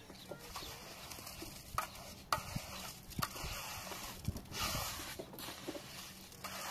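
Mason's trowel scraping and spreading gritty mortar over concrete blocks, with a few sharp taps of the trowel against the blocks and a longer, louder scrape about two-thirds through.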